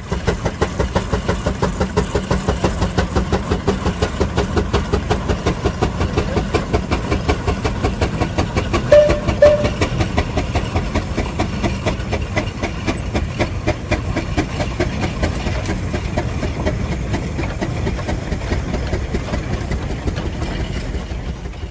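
Steam engine exhaust chuffing in a fast, steady rhythm of beats with a hiss of steam. Two short toots sound about nine seconds in, the loudest moment.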